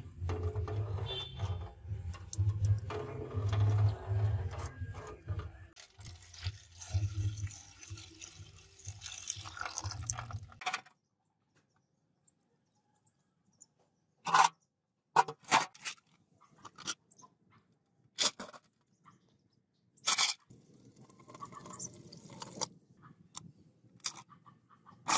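Water sloshing and splashing in a tin tray as small metal parts are rinsed, over a low pulsing hum, for about the first ten seconds. After a quiet spell come a series of sharp clinks and taps of metal parts against the tin, with a short splash of pouring water near the end.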